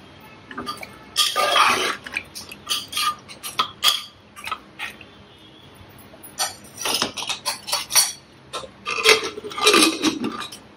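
Aluminium pressure cooker being closed: the lid clinks and scrapes against the pot and the long handle is swung shut to lock it. The sound is a scattered series of metal clinks, knocks and scrapes.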